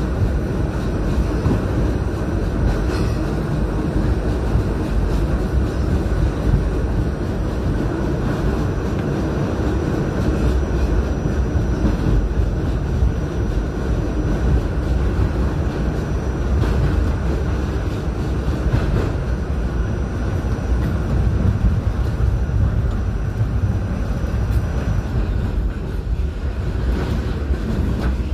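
R68A subway car running through a tunnel, heard from inside at the rear: a steady, loud rumble of wheels on rail, with a faint high steady whine that stops near the end.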